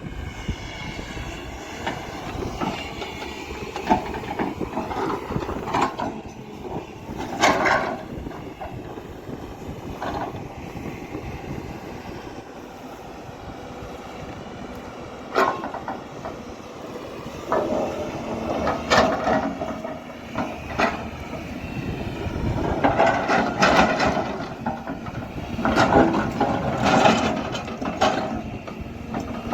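Excavator engine running under load, with irregular heavy clanks and knocks as the bucket digs and loads boulders and soil. The knocks come thicker in the second half.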